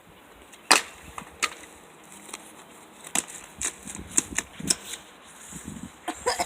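Sharp knocks and cracks of blows striking the wood of a dead tree, irregularly spaced, about ten in all, the loudest about a second in.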